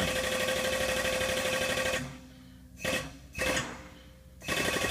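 Hydraulic press pump running with a fast, even buzz and a steady hum as the ram presses a bearing into an aluminium plate. It stops about two seconds in, gives two short bursts, and starts again near the end.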